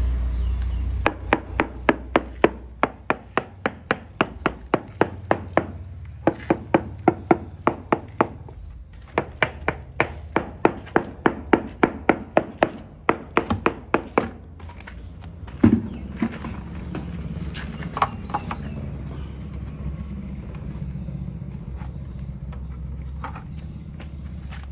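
A mallet tapping a large wall tile to bed it into the mortar on a pillar: quick sharp knocks, about three or four a second, in runs with short pauses. After about fourteen seconds the tapping stops, and then come one louder knock and a few scattered ones.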